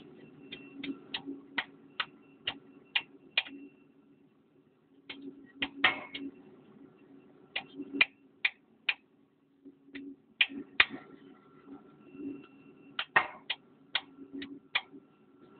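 Hand ratchet wrench clicking in runs of sharp ticks, about two to three a second, stopping and starting several times, as fasteners on a Cat 950F loader's injection pump are worked loose.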